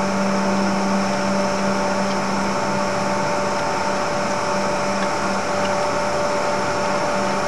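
Steady machine drone over an even hiss, with a constant pitched whine that does not change in pitch or level.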